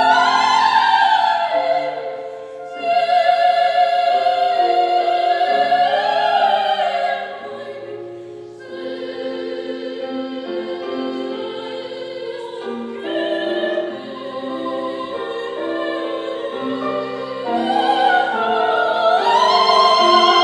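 A young woman singing in operatic style with piano accompaniment. The phrases pause briefly twice, the middle passage is softer, and the voice swells again near the end.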